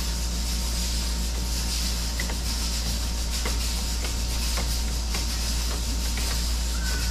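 Steady low rumble and hiss of background noise, with a few faint light clicks as orange juice concentrate is spooned from a carton into a plastic jug.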